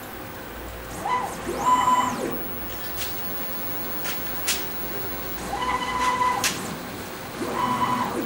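CNC lathe running a thread-cutting cycle on a plastic bottle-cap blank: three short motor whines, each rising quickly, holding a steady pitch for under a second and falling away, about a second in, near six seconds and near the end. A few sharp clicks fall between them over a low steady hum.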